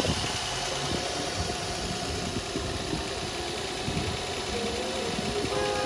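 Nissan Maxima's VQ35DE 3.5-litre V6 idling steadily, left running after a fresh radiator fill to bleed air out of the cooling system.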